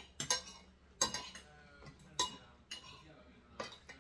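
Metal forks clinking and scraping against ceramic plates while eating, with several sharp, irregularly spaced clinks.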